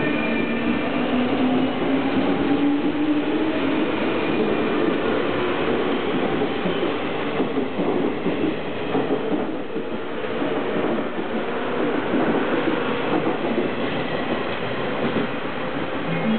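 JR 201 series thyristor-chopper electric commuter train pulling out and accelerating past. Its motor whine rises in pitch over the first few seconds, then the wheels clack steadily as the cars roll by.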